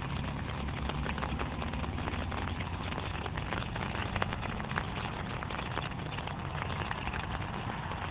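Outdoor wind rumbling on the microphone over a steady hiss, with many irregular light ticks of raindrops landing as a storm's rain comes in.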